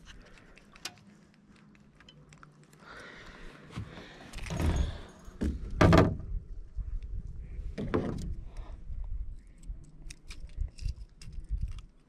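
Handling noises while a caught largemouth bass is landed: light metallic clicking and rattling throughout, with three louder rustling knocks about four and a half, six and eight seconds in.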